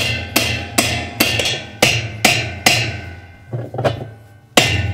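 Hammer striking a tub spanner wrench to drive a washer's tub nut tight on the spin tube: sharp metal-on-metal hits, each ringing briefly, about two a second, then a short lull and two more hits near the end.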